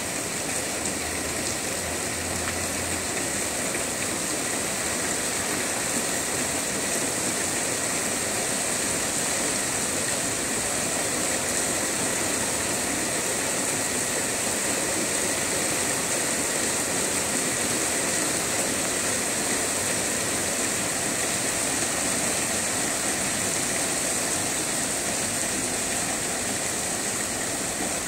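Steady rain falling on leafy trees, an even hiss with no breaks.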